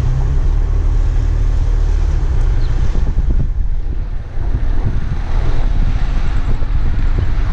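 Wind buffeting the microphone with the low rumble of a moving car and its tyres on the road.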